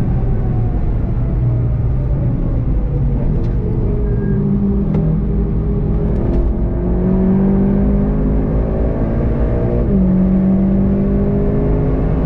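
Turbocharged four-cylinder engine of a VW Golf 7.5 GTI TCR, heard onboard. Its pitch falls as the car brakes hard into a corner, then climbs under full throttle. A quick DSG upshift just before ten seconds drops the pitch sharply, and it rises again.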